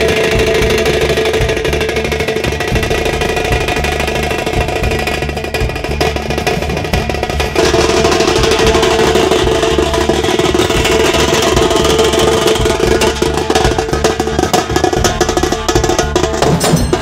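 Nashik dhol-tasha drumming: fast, continuous tasha strokes over the beat of large barrel dhol drums, with a steady ringing tone. The sound changes abruptly about seven seconds in.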